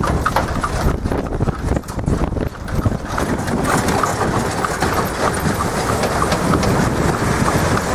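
Horse's hooves clip-clopping on a paved road over the steady rumble and rattle of a horse-drawn buggy rolling along.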